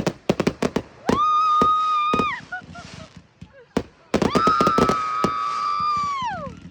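Whistling fireworks: two long steady whistles, each dropping in pitch as it dies away, amid rapid pops and crackles of firecrackers.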